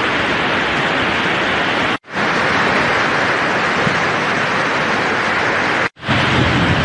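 Muddy floodwater rushing through a wadi in flash flood, a steady loud rushing noise that drops out abruptly twice where the footage is cut.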